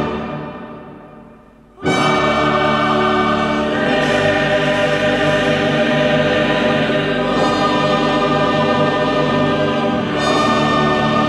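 Choral music with orchestra: a chord dies away over the first couple of seconds, then the full choir and orchestra come back in loudly and sing on.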